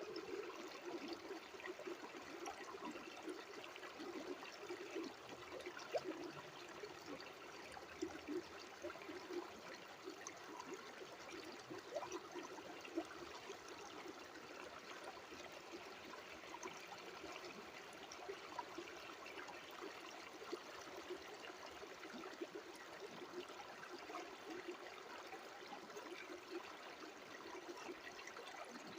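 Water trickling and babbling steadily, with many small splashes.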